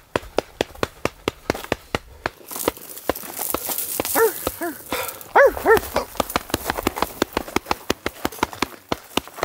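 A man pounding his chest with a gloved fist, quick regular thumps about four a second, as a Bigfoot-calling chest-beat. About four seconds in, four short hooting calls rise and fall from men's voices over the thumping.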